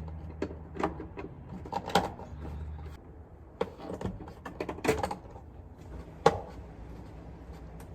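Irregular light clicks and taps of a hand tool working at the plastic trim around a pickup's inside door handle, with a faint steady low hum underneath.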